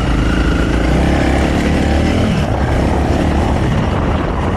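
Honda CRF300L's single-cylinder four-stroke engine running on stock intake and exhaust, its pitch falling over the first two seconds or so as the bike slows.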